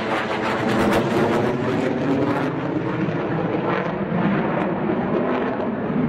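JF-17 Thunder fighter's single Klimov RD-93 turbofan roaring overhead in a display pass, a steady loud jet roar with a slowly shifting, phasing tone and a rougher crackle in its first couple of seconds.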